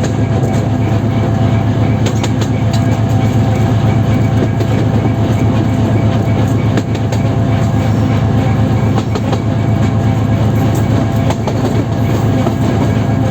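Cab of a 2TE10M diesel locomotive under way: the steady low drone of its 10D100 two-stroke diesel engine, with the clickety-clack of the wheels knocking over rail joints in scattered clusters of sharp clicks.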